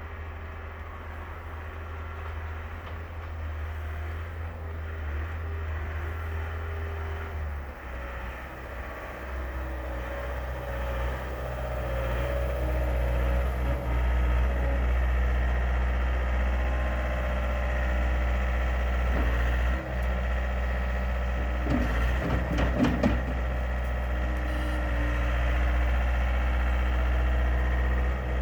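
The Yanmar diesel engine of a John Deere 318E skid steer running steadily, growing louder over the first dozen seconds and then holding. About three-quarters of the way through there is a brief clatter of knocks.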